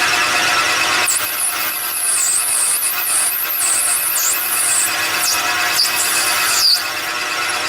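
Metal lathe running with a steady hum, and a tool working the spinning part gives a high, wavering squeal from about a second in to about five seconds, with short high chirps after.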